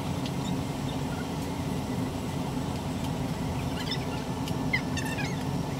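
Steady low hum and rumble with no clear source, with a few faint high squeaks or chirps about four to five seconds in.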